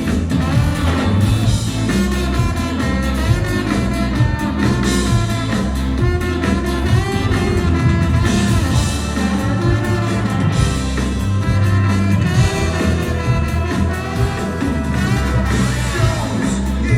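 Live ska-punk band playing loud amplified music, with a heavy bass line, drums and vocals, recorded from the audience.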